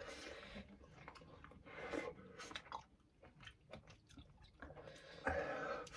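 A person chewing ramen noodles close to the microphone: faint, scattered small wet mouth clicks, densest through the middle, with a louder patch near the end.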